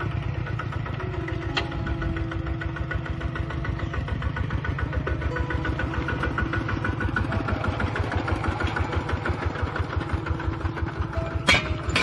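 Kubota RT-120 Plus walk-behind tractor's single-cylinder diesel engine chugging steadily in rapid even beats as it pulls a disc plough through dry soil. A single sharp knock sounds near the end.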